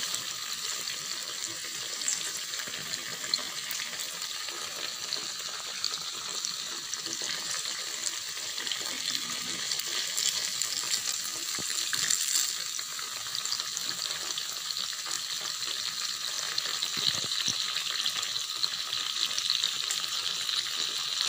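Tofu cubes deep-frying in hot oil in a pan: a steady sizzle with many tiny pops, while a slotted spatula stirs and turns them.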